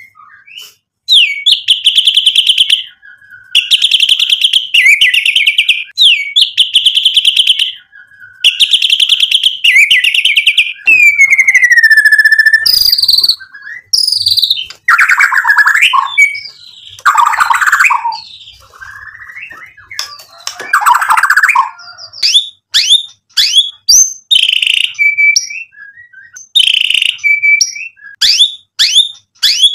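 White-rumped shama singing: rapid rattling trills of about a second and a half each, repeated five times, then a falling whistle, harsh scratchy notes, and a run of short rising whistles near the end.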